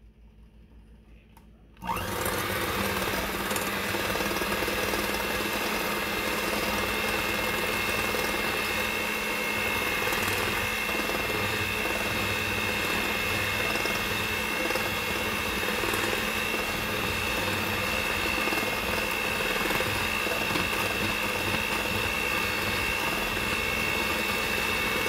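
Hamilton Beach six-speed electric hand mixer switched on about two seconds in, then running steadily with a constant high whine as its beaters whip softened butter and icing sugar into butter icing.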